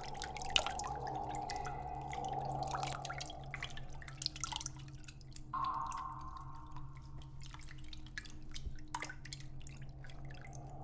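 Scattered water drips, many short irregular plinks, over a steady low drone in a creepy sound-design mix. A higher held tone comes in about halfway and fades a few seconds later.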